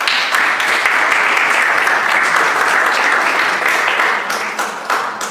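Audience applauding, a dense steady clapping that thins out into a few scattered claps near the end.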